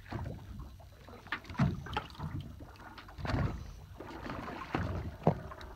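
Water lapping against the hull of a stopped fishing boat, with an uneven low rumble and a few sharp knocks, the sharpest just after five seconds in.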